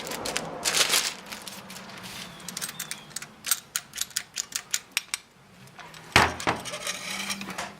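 Parts of an air grease gun being handled: a quick run of sharp metal-and-plastic clicks, then a louder knock about six seconds in, followed by rustling.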